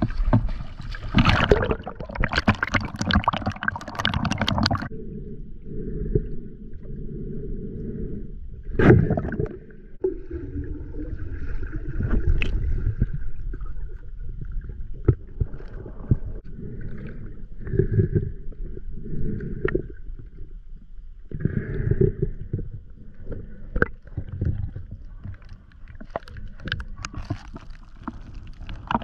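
Water splashing for the first few seconds, then muffled underwater sound: a low rumble and gurgling with scattered clicks and taps as the camera stays below the surface.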